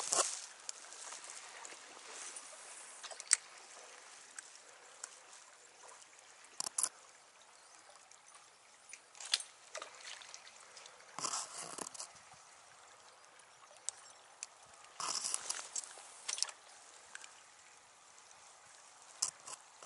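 River water flowing with a faint, steady rushing. Several short, louder noises come every few seconds, loudest about 11 and 15 seconds in.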